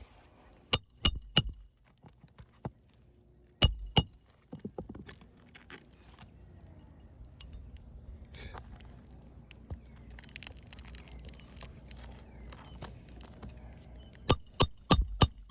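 Hammer blows on metal during shingle roof repair, each strike ringing sharply: three quick strikes about a second in, two more a few seconds later, then a fast run of strikes near the end, with faint scraping in between.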